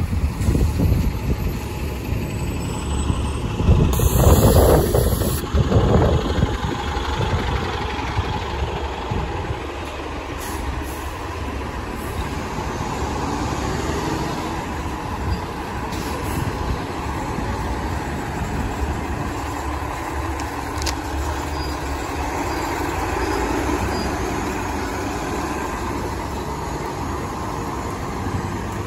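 Toronto transit city buses running and moving on a wet road, with street traffic. The loudest stretch is a heavy low rumble in the first six seconds, then a steadier hum of engines and traffic.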